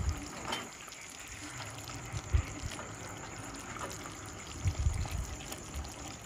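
Curry chicken feet cooking in thick gravy in a pot while a plastic spatula stirs and lifts them: wet squelching and bubbling, with a few soft knocks.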